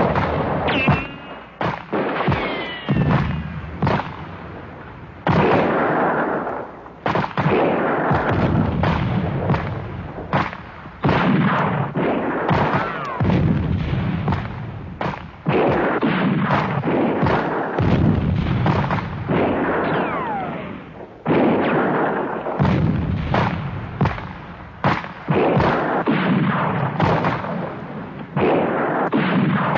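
Gunfire and explosions: a dense run of blasts every second or two, each dying away, with a few falling whistles between them.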